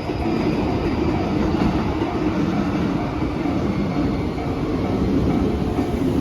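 Freight train passing close by: an EF210 electric locomotive hauling flat container wagons, its wheels on the rails making a steady, dense rumble.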